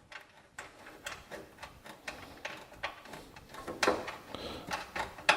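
Light, irregular clicks and taps of a tool and socket being handled and fitted onto small mounting nuts.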